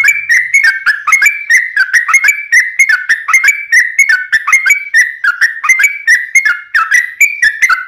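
Sooty-headed bulbul (trucuk) singing a long, unbroken chattering run of quick whistled notes, about four a second, without a pause.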